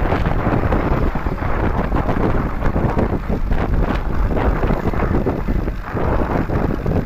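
Wind buffeting the microphone of a moving motorcycle, a loud, uneven rush, with vehicle noise beneath it.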